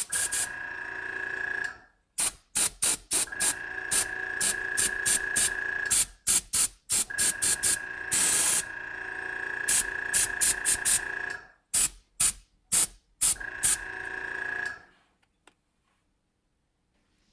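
Airbrush spraying paint onto a balsa crankbait: a hiss with a steady whistling tone, broken up by many quick taps of the trigger and one longer blast about eight seconds in. It stops near the end.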